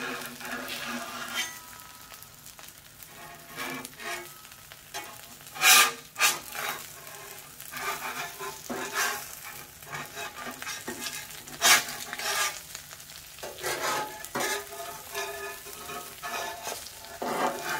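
Eggs sizzling on a Blackstone 22-inch griddle's steel top, with a metal spatula scraping and knocking against the griddle as it is worked under the eggs. There are sharp clanks about six seconds in, near twelve seconds, and again near the end.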